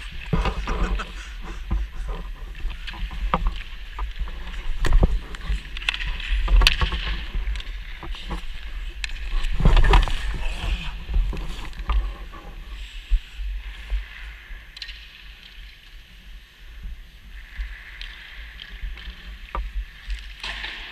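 Ice hockey goalie's skates scraping on rink ice and goalie gear shuffling, with several sharp knocks of stick and pads on the ice; the loudest come about five, seven and ten seconds in. A low rumble of gear rubbing on the body-worn camera runs underneath.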